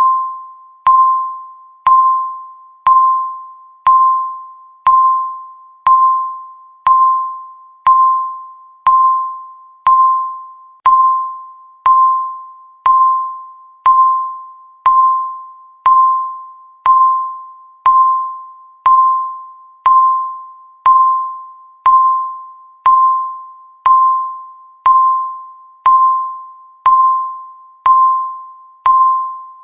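Countdown timer beeping once a second: the same short, high electronic tone each time, starting sharply and dying away before the next.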